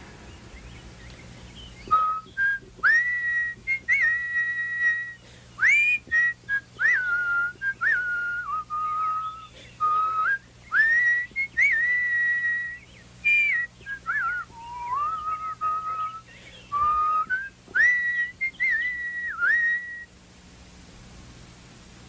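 A person whistling an imitation of a bird's song: a melody of held notes joined by quick upward and downward swoops. It starts about two seconds in and stops a couple of seconds before the end.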